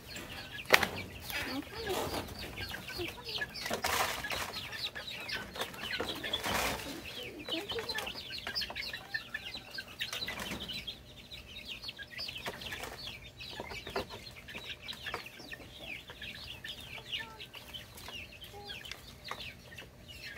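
Chickens clucking and peeping continuously as they are being fed. A sharp knock comes about a second in.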